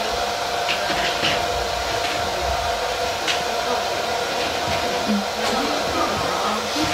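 Steady whooshing noise with a constant hum, with a few faint clicks.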